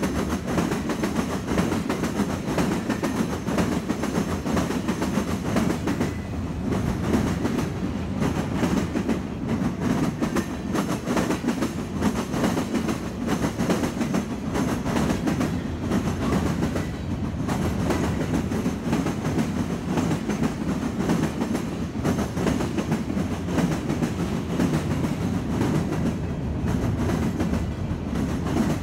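Freight cars of a manifest train, tank cars and covered hoppers, rolling past close by: a steady rumble of steel wheels on rail with a running clickety-clack of wheels over the rail joints.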